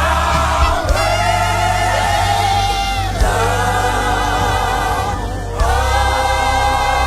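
Live gospel worship music: voices singing long, held notes with vibrato over a sustained band accompaniment, with a brief dip a little past halfway.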